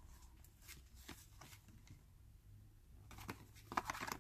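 Faint rustling and light clicks of a folded paper flashcard sheet being handled, with a quick run of sharper crinkles near the end.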